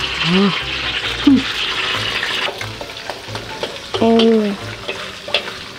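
Meat frying in a hot pan with a steady sizzle, strongest in the first couple of seconds, broken by a few short pitched sounds, the longest about four seconds in.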